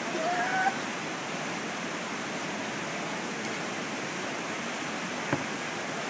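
Steady rush of water cascading through a rocky river gorge. A short voice is heard in the first second, and there is a single sharp click about five seconds in.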